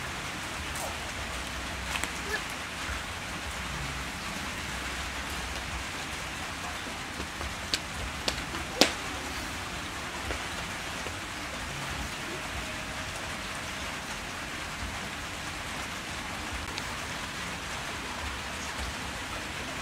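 Steady hiss of background noise, broken by a few sharp clicks: a pair about two seconds in, then three in quick succession about eight to nine seconds in, the last the loudest.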